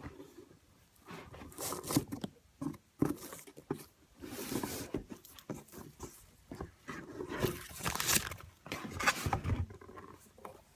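Packaging being handled during an unboxing: irregular rustling and scraping in short bursts, with light knocks and clicks.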